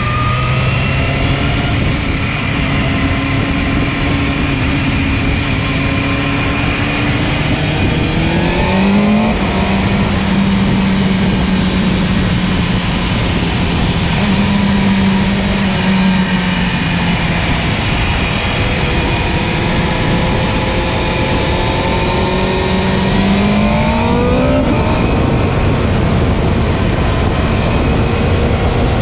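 Motorcycle engine heard from a camera mounted on the bike, running on track with a steady rushing noise; its pitch climbs twice under acceleration, about eight seconds in and again near the end.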